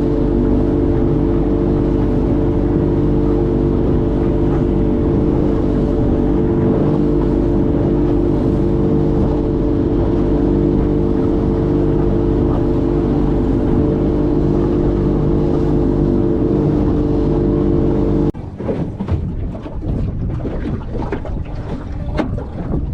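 Boat motor running at a steady speed, which stops abruptly about eighteen seconds in, leaving wind buffeting the microphone and water slapping against the hull.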